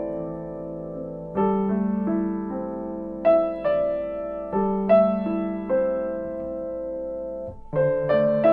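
Background piano music: slow notes and chords struck and left to ring, a new one every second or so.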